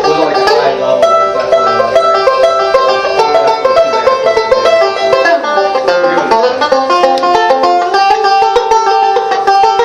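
Instrumental music of fast, closely spaced plucked-string notes, played continuously.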